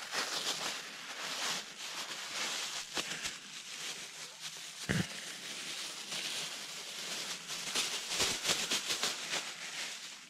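A cloth towel rubbed and crumpled between hands close to the microphone, an uneven rustling scrape, with one dull knock about five seconds in.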